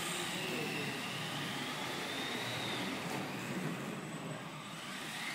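Small electric RC cars running on a track, their motors whining in a high pitch that rises and falls as they speed up and slow down, over a steady running noise.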